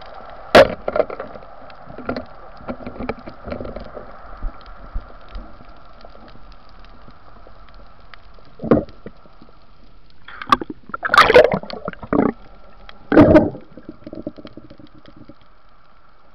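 Underwater recording of a speargun shot: one sharp, loud crack about half a second in, followed by scattered small knocks and rattles of the spear shaft and struggling fish. A thump comes later, then louder rushes of noise, over a steady low hum from the camera housing.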